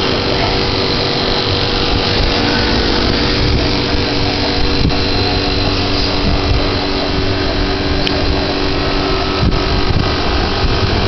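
A steady mechanical hum: a dense rushing noise with a few low steady tones, and a handful of faint clicks.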